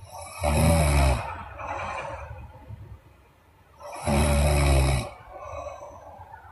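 A woman snoring: two loud snores about three and a half seconds apart, each lasting about a second and followed by a quieter breath.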